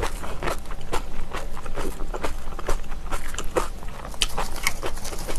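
Close-miked chewing of crunchy kimchi: crisp wet crunches, about two or three a second.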